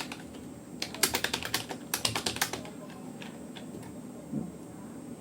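Keystrokes on a Rapoo computer keyboard during a typing test: a quick run of typing about a second in, then a few scattered key presses and a single soft low knock near the end.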